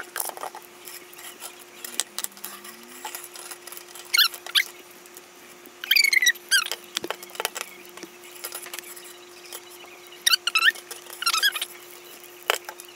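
Rubber mouse cable squeaking as it is pulled through a tissue wet with nail polish remover. The squeaks come in several short, high runs, with light rustling in between.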